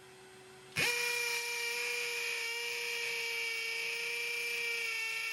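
Flex FX1271T 24V brushless hammer drill boring into concrete with a masonry bit on speed 2 with turbo off. It starts suddenly about a second in and runs at a steady pitch.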